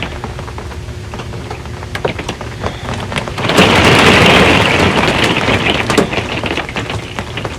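Rain falling on a metal RV roof, with many sharp individual drop clicks over a steady patter. About halfway through, a loud burst of thunder comes in suddenly and fades away over a couple of seconds.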